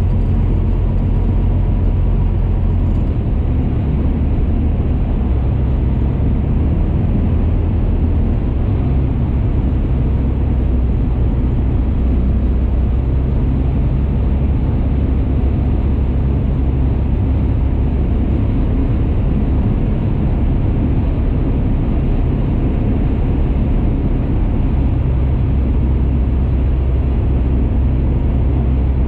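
Tecnam Eaglet light aircraft's engine and propeller running with a steady, loud low drone during the landing approach. Its low tones shift slightly a few times, around 3 and 8 seconds in.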